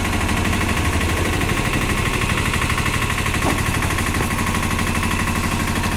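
Auto-rickshaw's single-cylinder engine idling with a fast, even putter.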